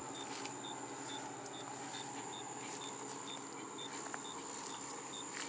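Night insects: a cricket chirping steadily about twice a second over a continuous high-pitched insect trill, with a few faint clicks.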